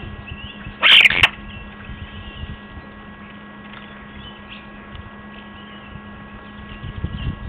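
Common starling calling at a seed feeder: one loud, harsh call about a second in, then faint whistles and chatter. Under it runs a steady electronic hum, and a few low thumps come near the end.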